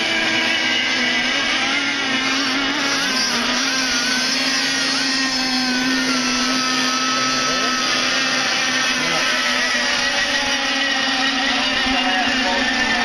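Several radio-controlled racing boats running flat out together, their motors whining at different pitches that rise and fall as the boats turn and straighten around the course.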